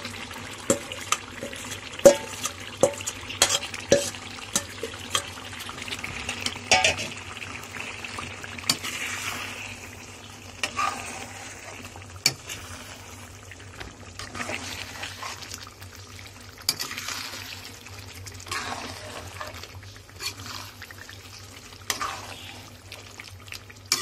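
Marinated chicken sizzling as it goes into hot fried masala in a kadai, with a metal spoon scraping it out of a steel bowl and clinking against the bowl and pan in many quick sharp taps over the first several seconds. After that come slower scraping strokes as the chicken is stirred into the masala.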